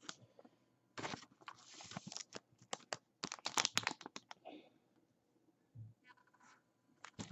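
A trading card being handled and slid into a clear plastic card holder: faint scratchy rustling and sharp plastic clicks in a quick run from about one to nearly five seconds in, then a couple of light clicks near the end.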